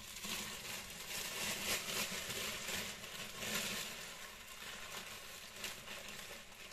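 Thin plastic bags rustling and crinkling as hands open them and fold back the wrapping. The rustling is busiest over the first few seconds and lighter afterwards.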